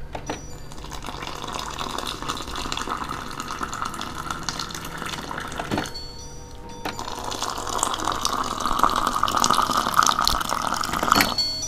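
Hot water running from a water dispenser's spout into a mug. It pours in two runs, with a short break about six seconds in, and stops just before the end.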